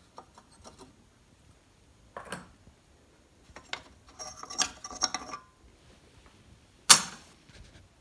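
Clinks and scrapes of a gas cooktop's burner plates and rings being lifted off and handled, with a ringing metallic clatter about four to five seconds in and one sharp, loud clank near seven seconds.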